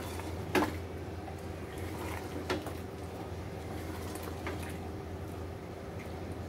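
A wooden spatula stirring a wet chicken and potato curry in an aluminium pressure cooker. It knocks against the pot three times, about half a second, two and a half and four and a half seconds in, over a steady low hum.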